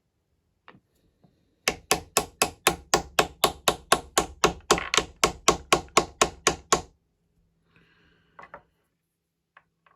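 Wooden toy hammer rapidly tapping a wooden bolt down into a vintage Lego wooden anvil, about four even knocks a second for some five seconds, driving the bolt in so that another is pushed out at the front. A couple of light knocks follow near the end.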